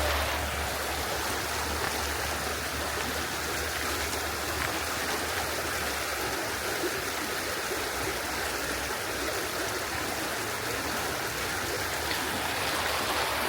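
Steady rush of a flowing creek, with a low rumble underneath that fades out about six seconds in.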